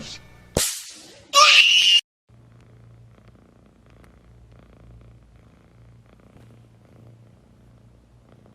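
A cat: a sharp noise, then a brief loud harsh cry that cuts off suddenly about two seconds in, followed by quiet low purring.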